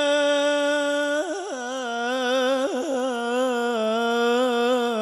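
Solo male voice singing Arabic sholawat into a microphone. He holds one long steady note, then about a second in breaks into a melismatic run with vibrato and settles on a lower note.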